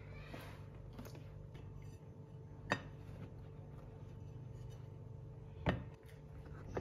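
Faint handling of a plastic pudding mould and a ceramic plate. There are two sharp knocks, one a little before halfway and a louder one with a dull thump near the end, as the plate is set down on the counter, over a low steady hum.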